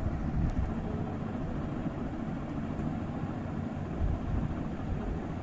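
Steady low background rumble, with a soft bump about four seconds in.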